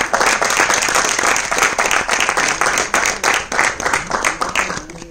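Audience applauding, a dense round of clapping that dies away near the end.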